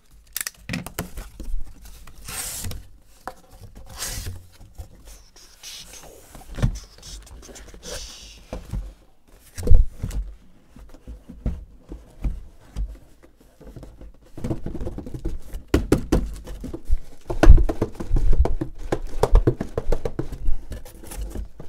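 Cardboard shipping case being cut and opened by hand: scattered scrapes, rustles and knocks of the tape and flaps, with one sharp knock about ten seconds in and a denser run of scraping and rattling over the last seven seconds.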